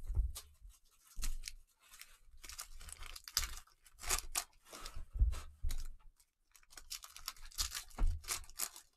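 Cellophane wrappers of Mosaic basketball-card cello packs being torn open and crinkled by gloved hands in irregular bursts, with a few dull low thumps as packs and cards are handled.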